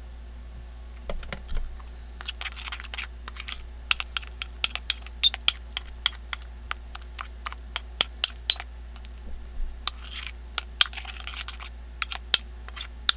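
A metal spoon stirring thick plaster of Paris paste in a glass bowl: quick, irregular clinks of the spoon against the glass, with short scraping passages, starting about a second in. The plaster is being thickened to a paste.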